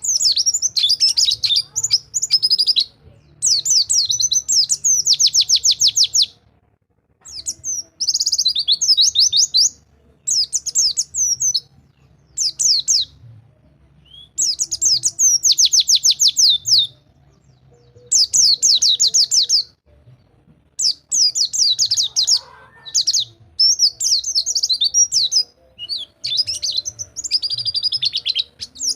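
White-eye (pleci) singing in the fast rolling 'rol tembak' style: loud phrases of rapid repeated high chirps, each lasting one to three seconds with short pauses between.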